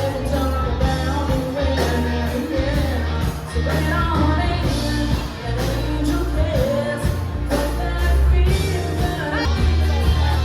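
Background pop-rock music with a sung vocal over a steady beat and strong bass.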